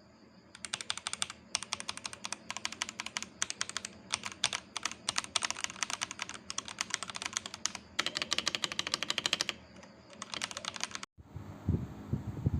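Typing on a mechanical keyboard fitted with AKKO switches: rapid key clicks in bursts with short pauses, stopping about a second before the end.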